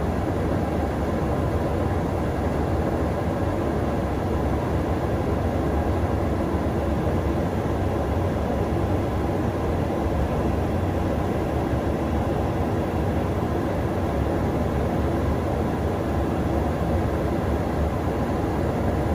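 Steady, unchanging roar of airflow and engines heard from inside a KC-135 Stratotanker in flight during aerial refueling, heaviest in the low rumble.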